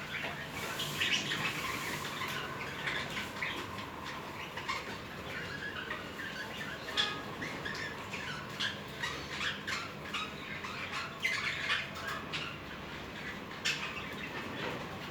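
Budgerigars chattering, a continuous run of quick chirps and squawks, as in courtship warbling.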